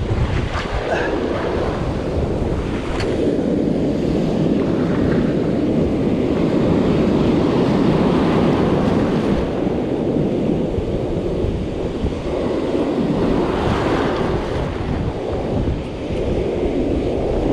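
Ocean surf breaking and washing in close at hand, a steady rush of whitewater, with wind rumbling on the microphone.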